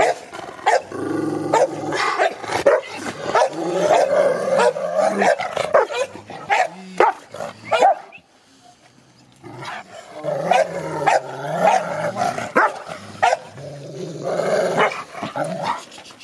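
Adult Rottweiler barking and growling in long runs, with a break of about a second and a half near the middle.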